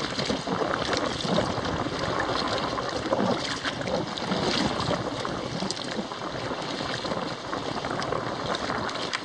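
Kayak paddle strokes: a double-bladed paddle dipping and splashing in shallow water stroke after stroke, over a steady rush of water and wind noise on the microphone.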